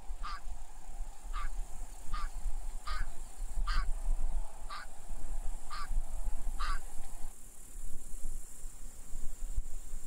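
Bean geese giving a run of about eight short honking calls, roughly one a second, that stop about seven seconds in.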